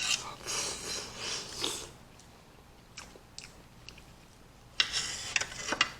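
Close-up wet slurping and chewing of soft, juicy kiwi fruit. It runs for about two seconds, drops to a few small clicks, then picks up again near the end.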